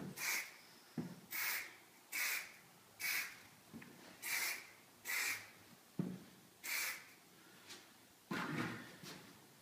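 Aerosol can of orange marking paint giving a run of short hisses, one quick spray about every second, as paint dots are sprayed onto a wooden subfloor. Near the end comes a longer scuffing sound.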